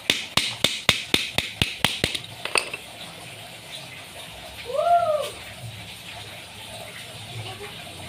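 Quick, light hammer taps, about four a second, stopping about two and a half seconds in. About five seconds in comes one short squeak that rises and falls in pitch.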